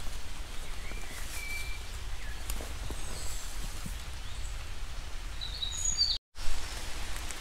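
Outdoor ambience in overgrown countryside: a steady low rumble with a noisy hiss, and a few short, faint bird chirps. The sound drops out completely for a moment about six seconds in, and a brief knock follows.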